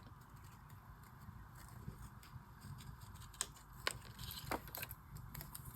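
Small scissors snipping through a sticker, faint, with a few sharp clicks in the second half.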